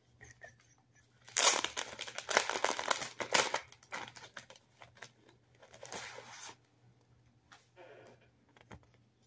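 Clear plastic packaging bag crinkling and tearing as it is pulled open by hand, loudest for about two seconds starting a second in, then lighter rustling for a few more seconds and a brief rustle near the end.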